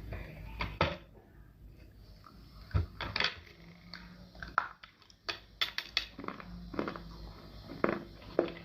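Irregular crisp crunches and clicks of someone biting and chewing hard, dry pieces of edible clay.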